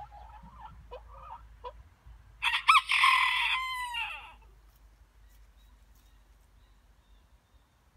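Chickens clucking softly, then a rooster crows once, loudly, for about two seconds starting about two and a half seconds in, the crow ending in a drawn-out falling note.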